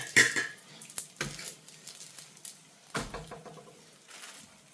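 Cooking utensils knocking against a frying pan and dishes: one sharp clank with brief ringing at the start, then a few lighter knocks.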